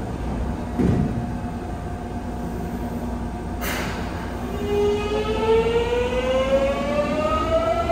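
Mitsubishi GTO-VVVF inverter traction motors of a Yokohama Municipal Subway 3000A train starting off, a whine that begins about halfway through and climbs steadily in pitch in several layered tones as the train accelerates away. Before it, a low thump about a second in and a sharp click a little before the whine begins, over the steady hum of the standing train.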